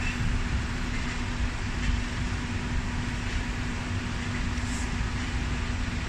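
A steady machine hum, one constant low drone over a rumble, with no distinct knocks or clicks.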